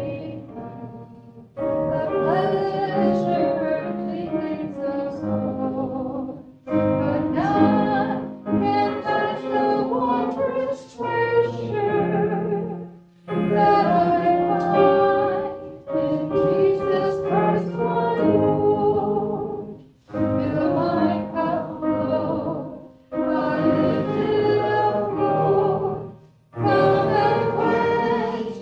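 Voices singing a hymn, in sung lines of a few seconds each with short breaks between them.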